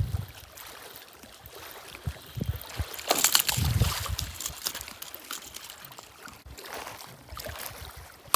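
Water splashing and trickling, with small scattered clicks and a louder, rougher stretch of splashing about three seconds in.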